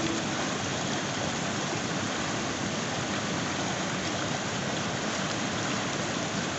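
Mountain river rushing over rock ledges in small rapids: a steady, even sound of running water.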